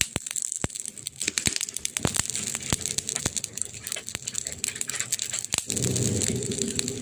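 Wood fire crackling, with frequent sharp pops and snaps over a soft hiss. A deeper, steadier rush of the fire comes up just before the end.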